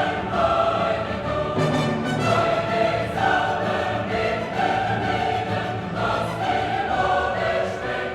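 Choral music: a choir singing in German in a classical style, with held notes changing about once a second.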